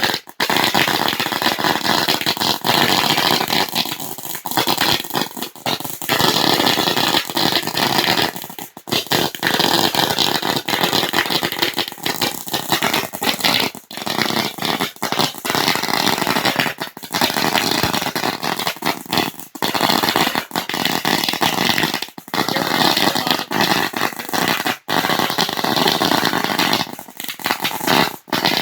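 A string of about 8,000 firecrackers going off in a dense, continuous crackle of small bangs, with brief dips every few seconds.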